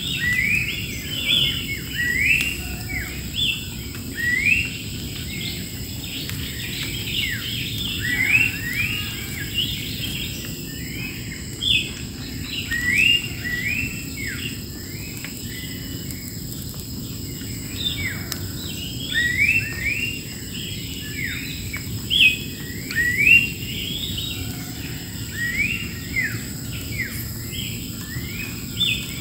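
Wild songbirds chirping: many short rising notes in quick runs, with pauses between the runs.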